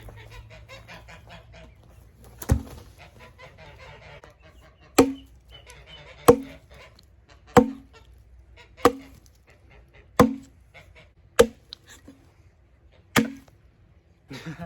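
Axe work on an old hewing axe with a handmade wooden handle: eight sharp knocks, each with a brief ringing tone, most of them about a second and a half apart.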